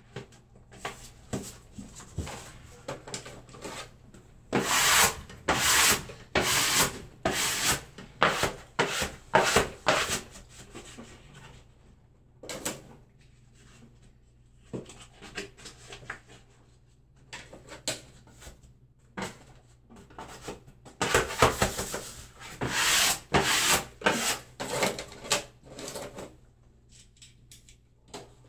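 Repeated rubbing strokes of a hand tool against wallpaper on a wall, about one a second, coming in two louder runs with quieter scattered strokes between.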